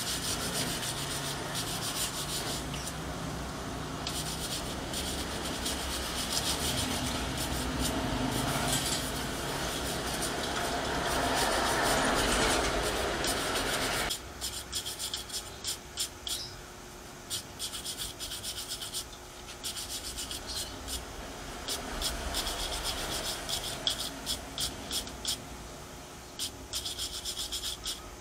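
Hand scrubbing on the top of a car battery: a steady rubbing scrape for about the first half, then, after a sudden change, a run of short quick brush strokes.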